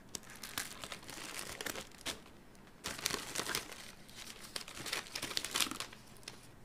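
Product packaging being handled and crinkled: irregular crackling rustles in two spells, the second starting about three seconds in and slightly louder.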